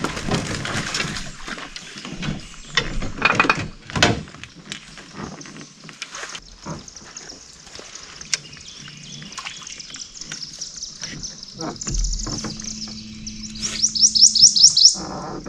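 Knocks and clatter of gear against an aluminium jon boat for the first few seconds, then quiet. Near the end a bird sings a quick run of about seven high chirps.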